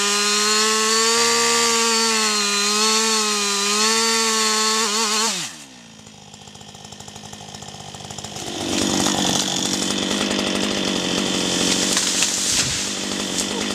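Petrol chainsaw running at full throttle, its engine then dropping sharply in pitch and level to idle about five seconds in when the throttle is released. From about eight seconds it speeds up again and runs louder with a rougher, noisier sound, as when cutting.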